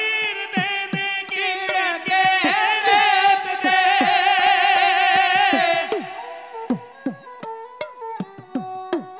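Dhadi ensemble: voices singing with heavy vibrato over a bowed sarangi and two dhad hourglass drums, struck in a steady beat, each stroke sliding down in pitch. About six seconds in the singing stops and the sarangi and dhads play on alone, quieter.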